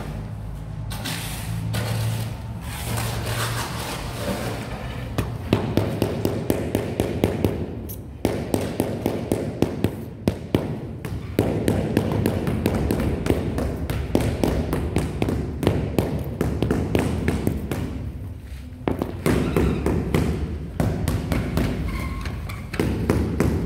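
Quick runs of taps from a mallet on a large porcelain floor tile, about four or five blows a second with short pauses in between, bedding the tile down into its mortar.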